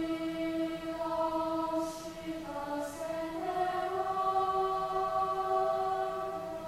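Children's choir singing long held chords in several parts, moving to a new chord about three seconds in.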